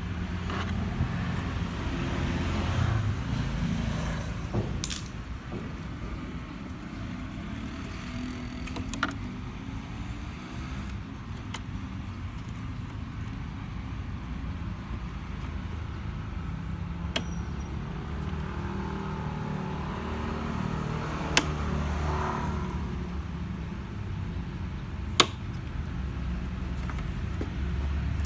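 Low engine rumble of motor vehicles, swelling a few seconds in and again about three-quarters of the way through, with a handful of sharp clicks scattered throughout.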